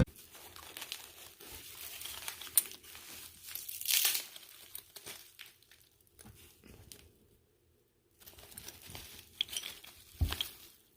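Packing material crinkling and rustling as a box of glass candle jars is unpacked, with scattered small clicks and knocks, a brief pause in the middle, and a sharper knock near the end.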